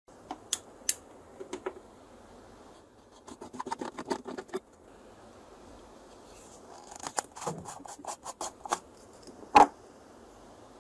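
Hard plastic handling sounds from an LED bulb being taken apart: two sharp clicks near the start, then runs of small clicks and scraping. Near the end comes one loud sharp snap as the plastic diffuser dome comes off the bulb's base.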